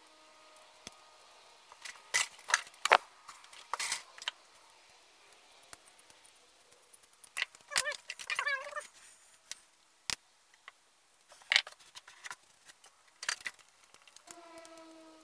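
Scattered clicks, knocks and light metallic clinks of small tools, wires and parts being handled on a workbench, with a short wavering squeak about eight seconds in.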